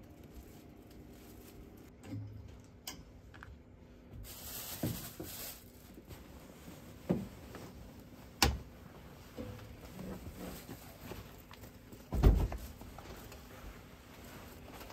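A person climbing into a capsule hotel pod: scattered knocks and thumps against the pod and its bedding, with a rustle of fabric around five seconds in and the heaviest, deepest thump about twelve seconds in.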